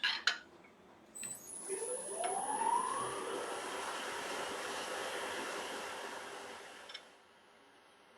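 Wood lathe switched on, its motor whine rising in pitch as it comes up to speed, then running steadily with a hiss before the sound drops away near the end. A couple of clicks come at the start.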